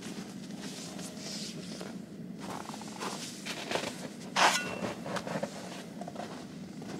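Crunching and scraping in snow, irregular, with one sharper knock about four and a half seconds in, over a steady low hum.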